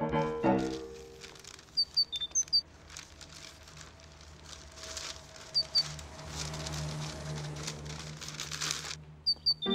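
A short piano tune breaks off under a second in. Rustling and scuffling noise with small clicks follows, growing louder in the second half over a low hum. A few short high chirps sound about two seconds in and again mid-way, and the whole noise cuts off suddenly near the end.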